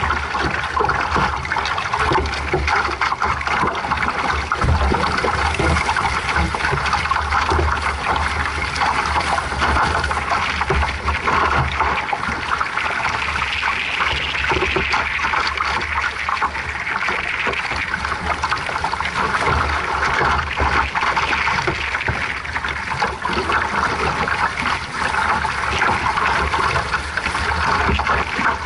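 Water rushing and splashing along the hull of a small sailboat under way, a steady wash with a fluttering low rumble of wind on the microphone underneath.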